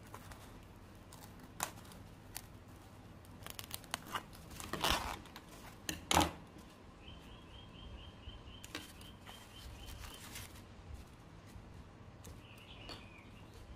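Scissors cutting through a sheet of white polyethylene foam, a few crackling snips about four to five seconds in, followed by a single sharper knock about six seconds in.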